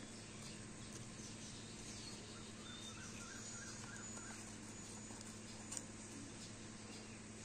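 Faint snips of scissors cutting paper, with one sharper click a little past three-quarters through, over a steady low hum. A few faint bird chirps come near the middle.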